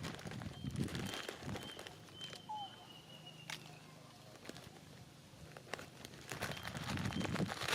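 Rustling and scattered light clicks, with a few faint high chirps and one brief sliding call near the middle.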